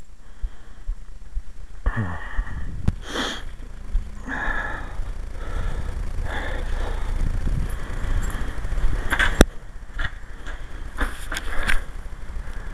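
Wind rumbling and buffeting on the microphone, with scattered faint whirring and a few sharp clicks.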